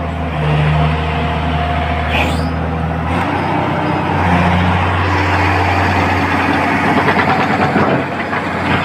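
Halla 280LC excavator's diesel engine running steadily; about three seconds in its note shifts, and from about five seconds on it runs louder and rougher. A brief high chirp sounds about two seconds in.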